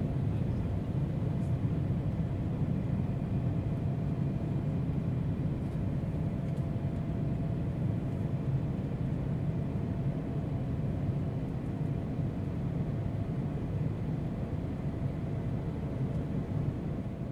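Steady low rumble of an airliner's engines heard from inside the passenger cabin, with a faint steady whine above it.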